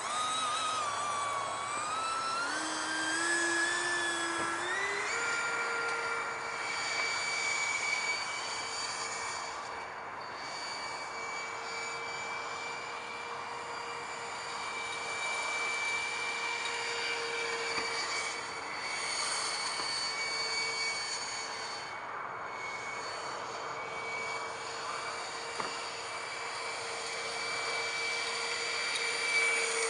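Electric ducted fan of an RC hydroplane, an 80mm E-flite fan with a 2050kv brushless motor on a 4S lipo, whining as it drives the boat. The pitch rises in steps over the first five seconds, then holds as a steady high whine that swells and fades a little as the boat moves across the water.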